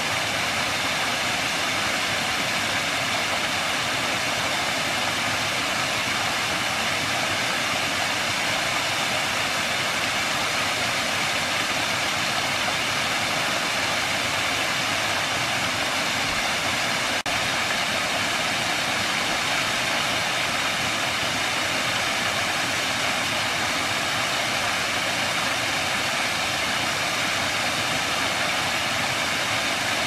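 Waterfall: a broad curtain of water pouring over a rock ledge into a pool, making a steady rush of falling and splashing water.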